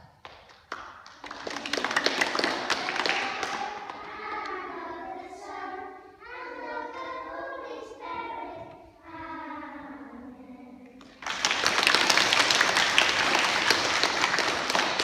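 A group of young children singing together for about ten seconds; then applause starts suddenly and carries on to the end.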